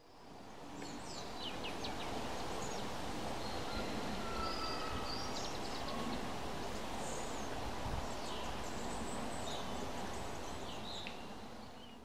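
Scattered high-pitched chirps, squeaks and short whistles from small animals over a steady background hiss.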